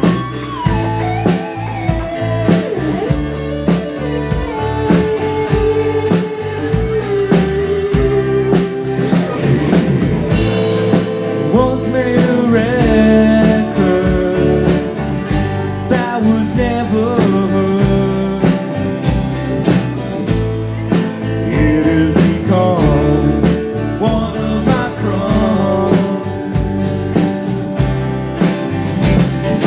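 Band playing a blues-rock song, with guitars over a steady drum beat and a sung vocal.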